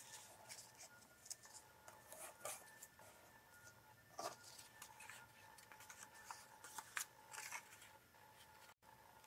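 Faint paper handling: scattered soft rustles and light taps of card stock as the cut-out window flap is pushed open and the folded card is picked up.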